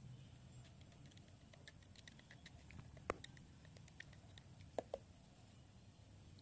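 Near silence with faint small clicks and rustles of a sandpaper strip and a glue bottle being handled, as the sandpaper is glued around a small DC motor's disc. One sharper click about three seconds in and a quick pair of clicks near five seconds.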